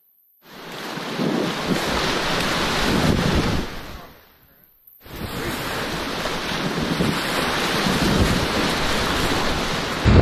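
Whitewater rapids rushing and churning around an inflatable kayak, mixed with wind buffeting the microphone. The sound is silent for the first half second and fades out again for about a second near the middle before coming back.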